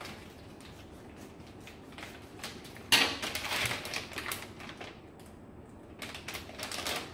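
Plastic packaging crinkling and rustling as it is cut with scissors and pulled open by hand, with a sudden loud burst of crackling about three seconds in and more crinkling near the end.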